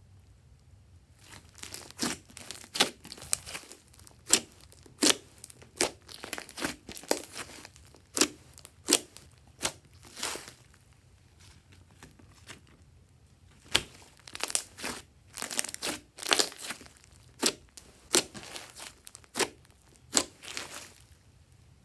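Glossy slime being squished and kneaded by hand, giving irregular sharp wet clicks and pops, with a pause of a couple of seconds midway.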